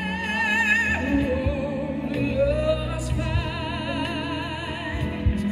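Show soundtrack music: an operatic soprano holds long notes with strong vibrato over orchestral accompaniment. One phrase ends about a second in and another begins a second later.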